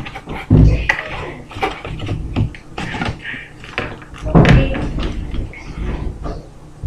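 Handling noise of a boxed shaver and its packaging: two heavy thumps, about half a second in and again near the middle, with clicks and rustling in between.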